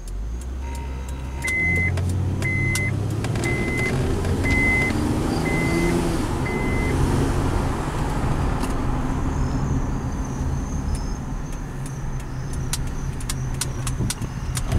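Inside the cab of a 2010 Honda Ridgeline on the move: the 3.5-litre V6 running under way with road noise, rising in pitch as it accelerates. Over it, a short high chime beeps six times, about once a second, in the first half.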